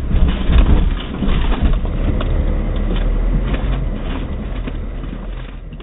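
Suzuki Jimny driving over rough off-road ground, heard from inside the cab: a low engine rumble with frequent knocks and rattles, fading out near the end.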